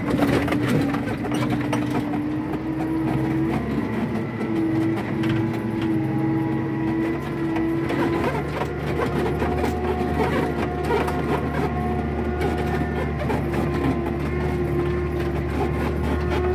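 Tractor engine running steadily as it drives through the field, heard from inside the cab, with a held whine over the drone. The low hum grows a little heavier about halfway through.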